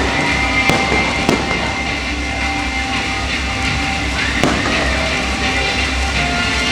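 Fireworks bursting with several sharp bangs, over patriotic music.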